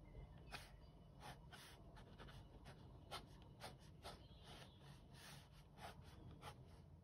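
Pen nib scratching on sketchbook paper as lines are drawn: about a dozen short, faint strokes at an uneven pace.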